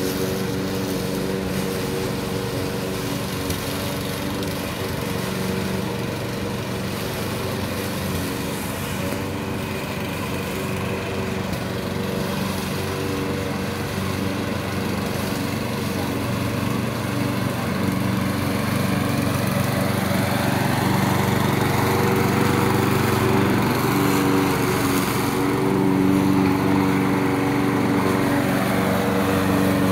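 Briggs & Stratton 625-series 150 cc single-cylinder four-stroke engine of a petrol rotary lawn mower running steadily. It grows somewhat louder and shifts slightly in pitch a little over halfway through.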